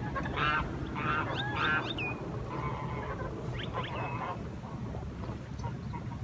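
Geese honking: a run of short, nasal, repeated calls that thin out about four seconds in, over a steady low rumble.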